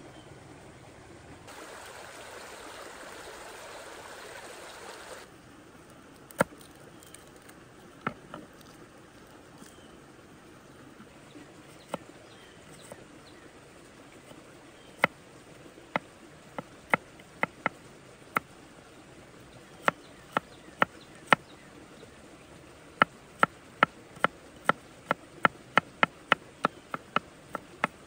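A run of sharp knocks, scattered at first, then from about two-thirds of the way in coming steadily at two or three a second. A brief steady hiss a couple of seconds in.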